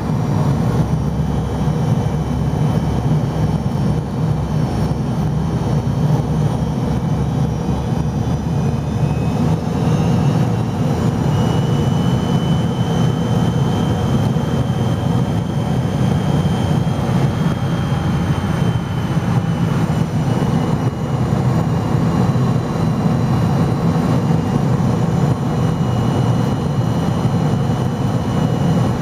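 Steady jet cabin noise inside an MD-88 airliner on its descent: the rear-mounted Pratt & Whitney JT8D turbofans running, with a deep rumble and the rush of air past the fuselage. A faint high whine comes in about ten seconds in and holds, sagging slightly in pitch later.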